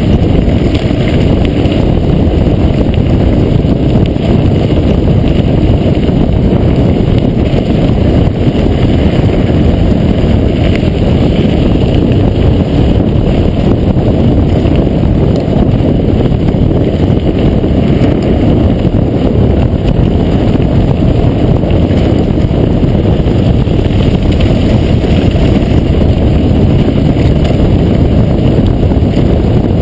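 Specialized Epic Expert mountain bike descending a loose gravel track: a steady loud rumble of tyres rolling over stones and the bike shaking on the rough surface, picked up through a handlebar-mounted camera with wind on the microphone.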